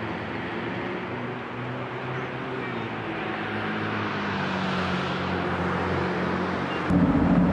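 Town street traffic: a steady hum of engines and tyres, with a vehicle growing louder through the second half. About seven seconds in it gives way suddenly to louder, closer street noise.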